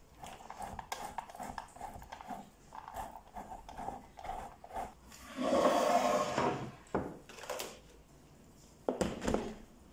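Hard kashkaval cheese being grated on a box grater over a wooden cutting board, quick rasping strokes about three a second. A louder, longer scrape comes around the middle, and a few sharp wooden knocks near the end.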